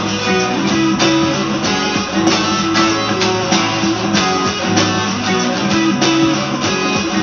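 Telecaster-style electric guitar strummed and picked in a steady rhythm, playing a song part with sustained low notes underneath.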